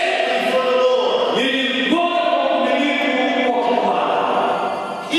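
Voices singing a slow melody together in long held notes, moving to a new note every second or so.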